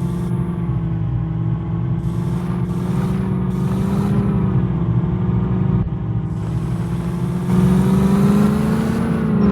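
Jeep engine running steadily, its pitch rising and falling a little as the throttle changes, growing louder about seven and a half seconds in.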